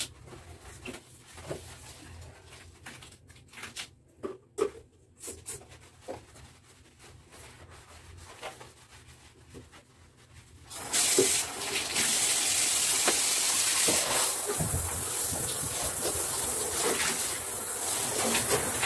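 Soft scrubbing with a few small knocks, then about eleven seconds in a handheld shower head is turned on and runs steadily, spraying water to rinse a bathtub.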